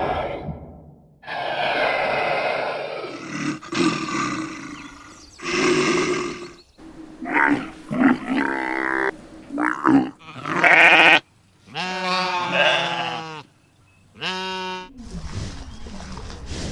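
A series of separate farm-animal calls, one after another. About the first six seconds hold rough, noisy calls with short gaps between them. From about seven seconds on come pitched calls with clear tones, the loudest around ten to eleven seconds in, and a noisier call returns near the end.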